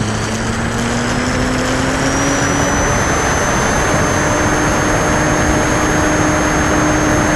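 HobbyZone Apprentice S 2 RC airplane's electric motor and propeller on takeoff, heard through the onboard camera's microphone with wind rush: the whine rises in pitch over the first few seconds as the plane leaves the ground, then holds steady in the climb.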